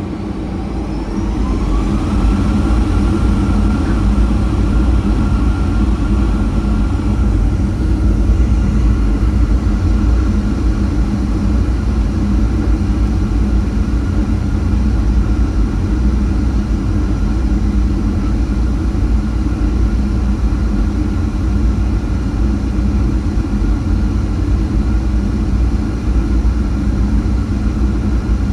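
Boeing 737-800's CFM56 turbofan engines spooling up for the takeoff roll. A whine rises over about two seconds and then holds steady over a loud, continuous rumble, heard from inside the cabin.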